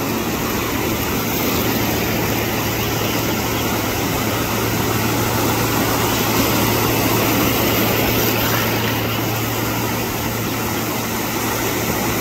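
Steady rush of ocean surf breaking on the beach, with a constant low hum underneath.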